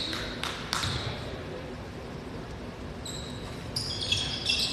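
Basketball shoes squeaking on a hardwood gym floor in short high chirps over the last second and a half, after a couple of sharp knocks in the first second, over steady gym room noise.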